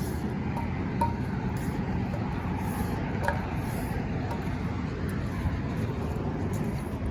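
Steady low outdoor rumble with two faint clicks, about a second and about three seconds in.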